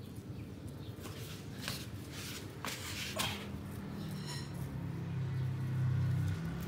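Light scattered clicks and scrapes of a common snapping turtle's claws on patio tiles as it walks. From about four seconds in, a low steady hum grows louder beneath them.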